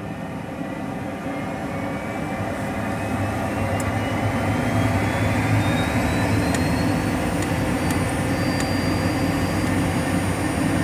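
Cessna Citation V's Pratt & Whitney Canada JT15D-5A turbofan spooling up after light-off during its start, heard from inside the cockpit: a whine that rises steadily for about seven seconds and then levels off as the engine nears idle, over a steady low hum.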